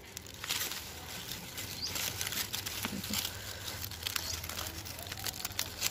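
Corn leaves and husk rustling and crackling as hands grip a sweet corn ear and work it loose from the stalk: a stream of small, irregular dry crackles.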